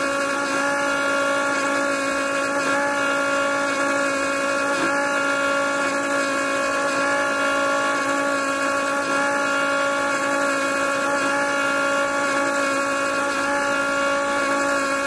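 Small DC motor of a homemade juicer running at a steady speed, with an even hum of several fixed tones that does not change.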